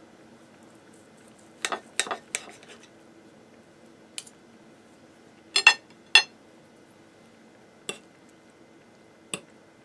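Steel knife and fork clinking and scraping against a ceramic bowl while cutting into chicken: a series of separate sharp clinks, the loudest pair about six seconds in with a brief ringing tone.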